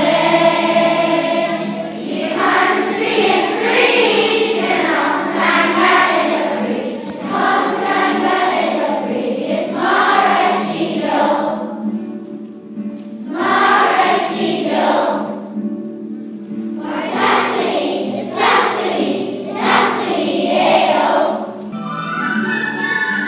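Choir of schoolchildren singing a song in Irish, in phrases of a few seconds each, over sustained low accompaniment notes.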